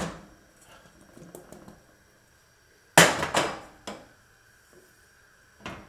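Kitchenware knocks: one sharp knock about three seconds in that rings briefly, a smaller knock soon after, and another near the end.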